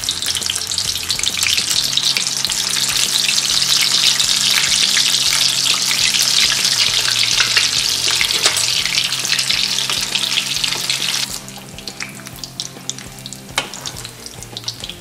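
Noodle-wrapped paneer rolls deep-frying in hot oil in an aluminium kadai: a loud, steady sizzle that drops suddenly to a quieter crackle about eleven seconds in, with a few light clicks near the end.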